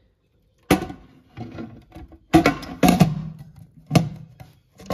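Metal cover of a Deye 3.3 kW on-grid solar inverter knocking and clattering against the case as it is fitted back on, about five sharp knocks that ring briefly.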